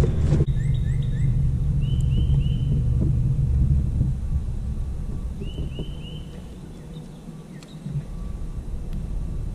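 A songbird sings a quick phrase of three arched notes, twice, over a low, uneven rumble that eases for a moment about seven seconds in.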